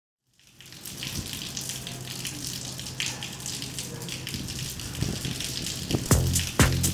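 A steady rushing, water-like noise fades in over a low hum. About six seconds in, a music beat with low drum hits comes in.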